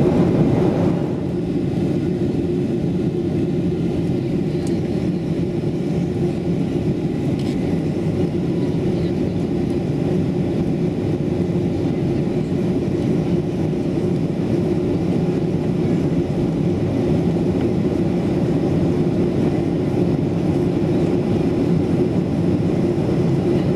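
Steady cabin noise inside a Boeing 737-8200 airliner in flight: a low, even rush of airflow and engine drone heard at a window seat. The higher part of the noise eases slightly about a second in, then holds steady.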